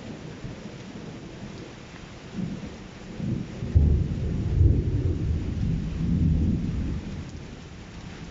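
Thunder rumbling over steady rain: a deep roll builds about two seconds in, is loudest through the middle, and dies away near the end.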